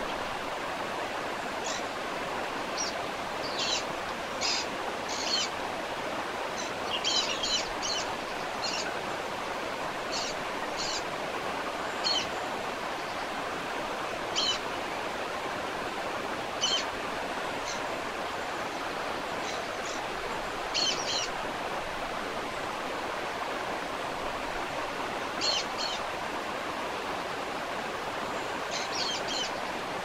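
Waterfall rushing steadily, with birds giving brief, high chirps every few seconds over it.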